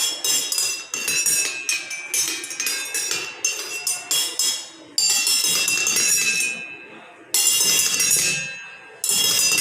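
Jal tarang of eight glasses holding different amounts of water, struck in turn so that each rings at its own pitch. A quick run of notes fills the first five seconds, then three single notes are struck and left to ring, about two seconds apart.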